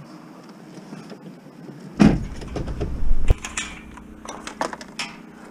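Minivan door handled and shut: a rumbling thud about two seconds in ending in a sharp slam, followed by scattered clicks and knocks.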